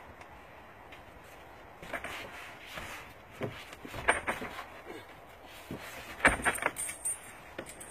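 Irregular knocks and thumps. There is little for the first two seconds, then scattered sharp hits, with the loudest cluster about six seconds in.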